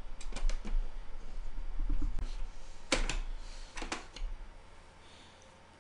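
Plastic clicks and snaps as the front dust filter of a Fractal Design Define R5 case is unclipped and pulled off. A few light clicks come first, then sharper snaps about three and four seconds in.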